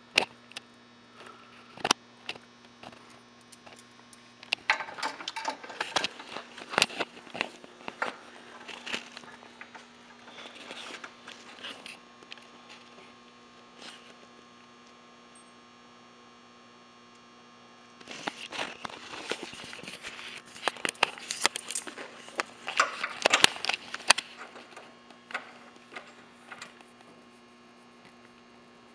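Small metal bolts and washers clicking and clinking as they are picked up and threaded by hand into the base of a TV lift mechanism, in two busy spells, one starting about five seconds in and another around twenty seconds, over a steady mains hum.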